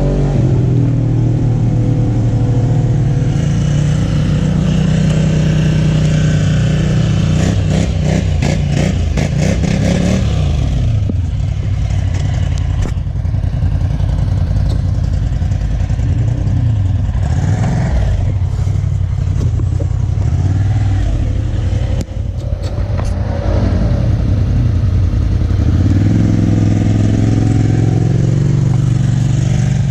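Off-road vehicle's engine running on a muddy trail, its revs rising and falling, with bursts of clattering about a third of the way in and again past the middle.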